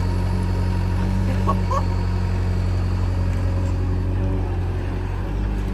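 Heavy diesel engine of the earthmoving machinery running steadily, its pitch dropping slightly right at the start.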